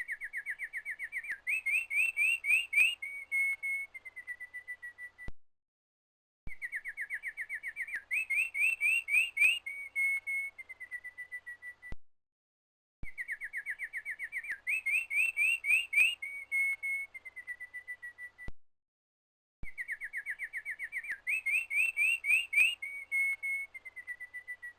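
A bird singing the same song phrase over and over: a fast run of notes rising into a brighter trill and ending on a few steadier notes, about five seconds long. The identical phrase repeats roughly four times with a short silent gap between repeats, a looped recording, each repeat ending with a faint click.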